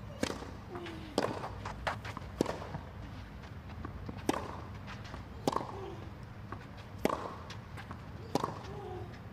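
Tennis rally on a clay court: sharp cracks of racket strings striking the ball, with ball bounces between them, one every second or so over a steady low background hum.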